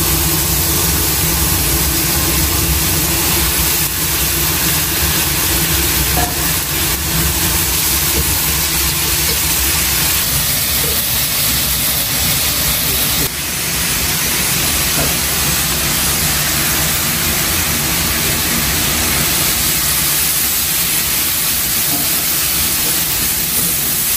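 A steady, loud hiss with a low rumble underneath, from pork and cabbage stir-frying in a wok over a gas burner. The noise dips briefly about halfway through.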